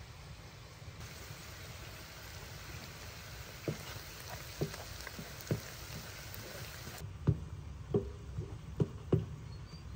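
A series of short dull knocks over a steady background hiss: three about a second apart from the middle onward, then five more closer together near the end.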